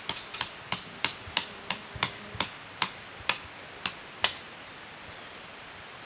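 Hammer strikes: about a dozen sharp, metallic-sounding taps at two to three a second, some leaving a brief high ring, stopping about four seconds in.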